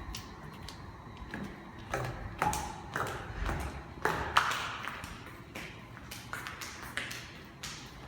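A series of irregular taps and clicks, some with a brief ringing tone, loudest in the middle.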